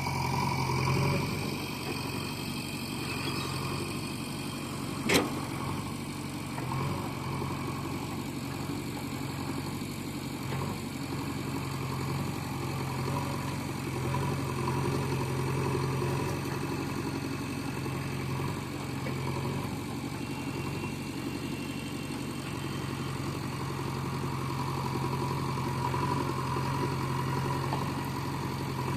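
JCB 3DX backhoe loader's diesel engine running steadily at low revs, with one sharp knock about five seconds in.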